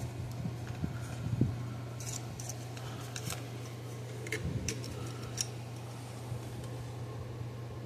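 Small clicks and taps from handling a solder spool and a circuit board on a workbench, over a steady low hum.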